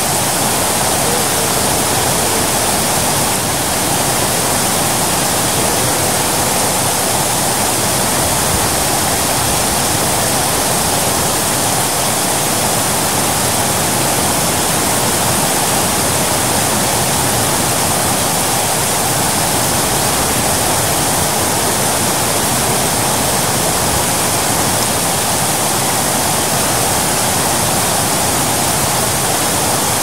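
Kravica Waterfall's cascades: a steady, unbroken rush of falling water.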